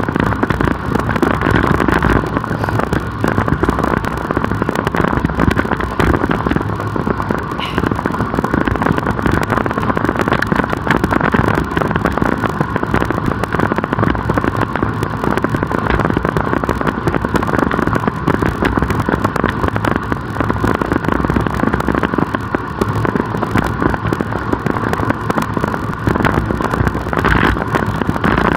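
Steady rushing wind noise on the microphone of a camera riding along on a road bicycle, mixed with road noise.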